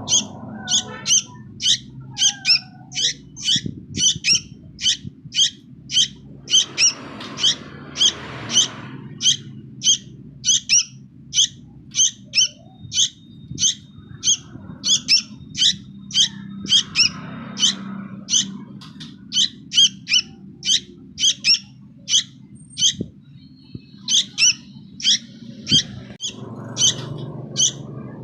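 Young sooty-headed bulbul giving a long, steady series of sharp, high begging calls (the 'nggaruda' call), about two a second.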